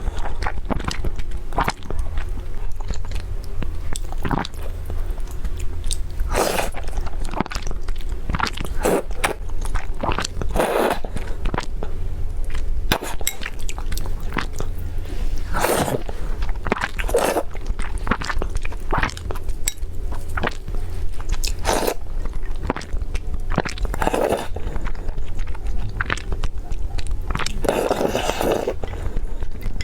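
Close-miked eating: crunchy bites and chewing, with sharp crunches every second or two at irregular intervals, over a steady low hum.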